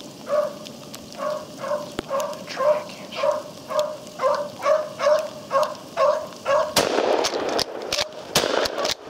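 Beagle baying in a steady run of barks, a little over two a second, as it trails a cottontail rabbit through the cover. In the last two seconds a louder rustling, crackling noise rises over the barking.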